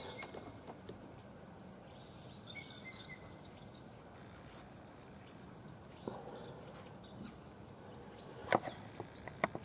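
Faint outdoor field ambience: a low steady hiss with a few faint chirps about three seconds in, and several sharp clicks near the end.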